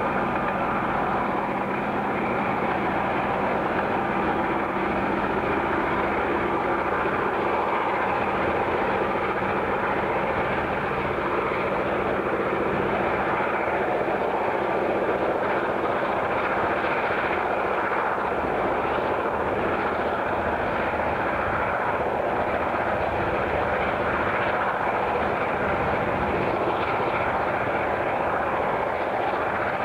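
A steady engine drone with a noisy hiss over it, unchanging in level throughout.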